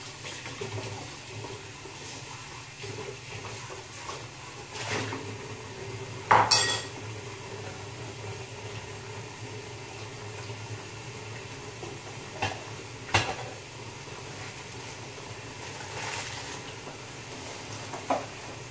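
Pots, pans and cutlery being handled while cooking: scattered clanks and clinks, the loudest a pair about six and a half seconds in, over a steady low hum.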